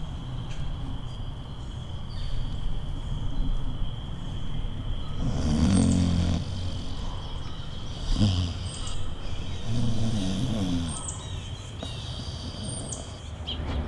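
A person snoring: three low, rasping snores a couple of seconds apart, over a steady thin high tone.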